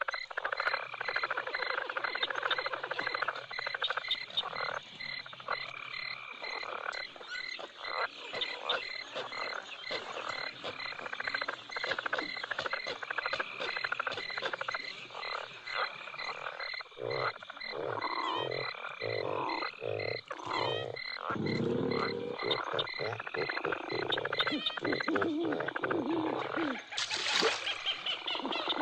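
Night chorus of frogs croaking over a steady, rapidly pulsing insect trill. Past the middle comes a run of deeper croaks, roughly two a second.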